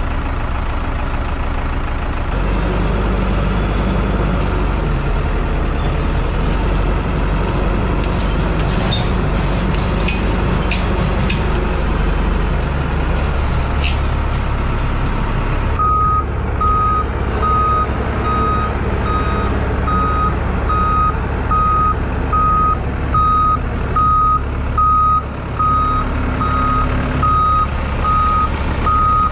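Telehandler engine running as the machine is driven, picking up about two seconds in; from about halfway its reverse alarm beeps steadily as it backs up onto a flatbed trailer.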